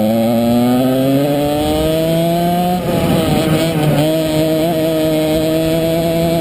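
Kart engine at full throttle, pitch rising steadily as it gathers speed, then dropping briefly about three seconds in as the throttle comes off through a bend before climbing again.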